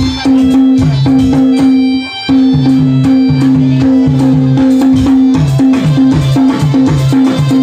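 Instrumental break of a live Nepali salaijo folk song: a steady held note over a repeating lower figure, with a regular drum beat. The sound briefly drops out about two seconds in.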